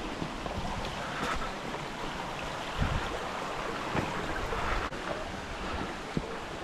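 Wind blowing on the microphone: a steady rush with a few low buffeting gusts, about three and four seconds in.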